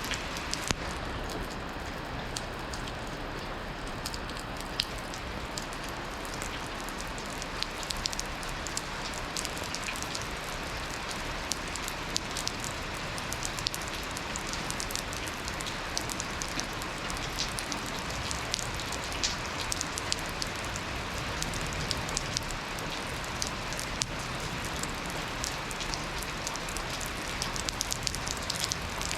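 Steady rain falling, an even hiss with many individual drops ticking sharply on hard surfaces, the ticks growing more frequent in the second half.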